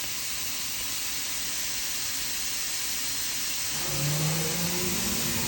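Makino F5 vertical machining center running with a steady hiss. About four seconds in, an electric motor whine of several tones starts, its lowest tone rising slightly, as an axis drive starts to move.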